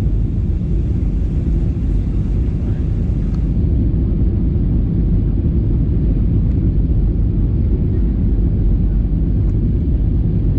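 Passenger airliner cabin noise: a steady, unchanging low rumble of the engines and airflow heard from inside the cabin.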